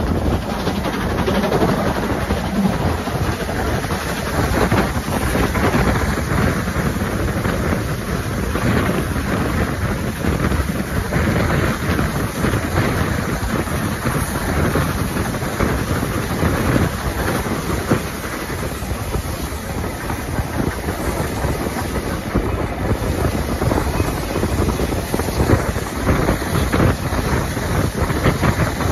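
Steam-hauled train running, heard out of a carriage window: a steady rush of wind on the microphone over the rumble of the coach's wheels on the rails.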